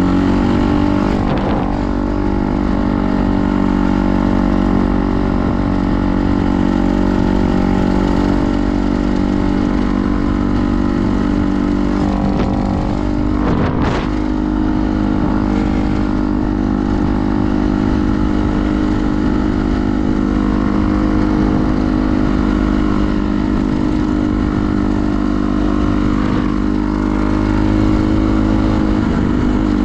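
An engine running steadily at an even speed, with a short click or knock about fourteen seconds in.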